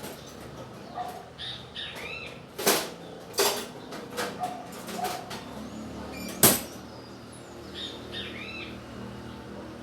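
Birds giving short chirping calls in two brief bouts, with a few sharp knocks or taps between them, the loudest about six and a half seconds in.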